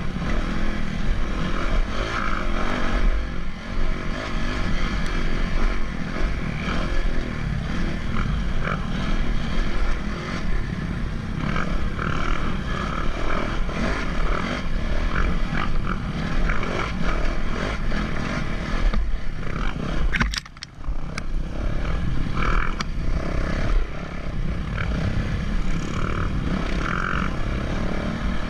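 A vehicle engine running steadily, with a click and a brief drop in level about twenty seconds in.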